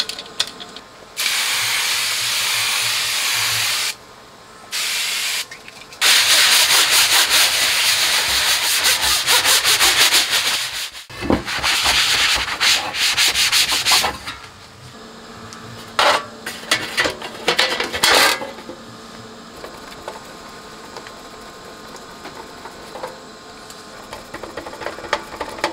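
A cloth rubbing and wiping over the metal lid of a Kenwood KA-405 amplifier in long stretches of dry scrubbing, the middle stretch in rapid strokes. Near the end come small clicks of a screwdriver driving the lid screws back in.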